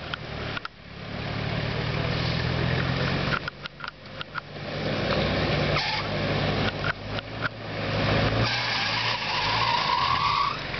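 Engine of a small four-wheel-drive SUV running as it crawls down a muddy, rutted track, growing louder towards the end as it nears.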